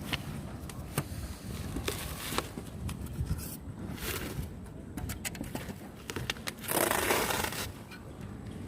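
Scraping and light clicks and knocks as a solar water heater's evacuated glass tube is worked into its seal in the tank, with a brief louder rush of scraping noise about seven seconds in.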